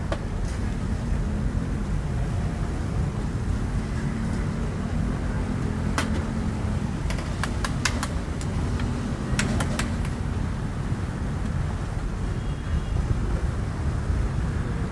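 Steady road traffic rumble from a busy street, with a few short sharp clicks in the middle.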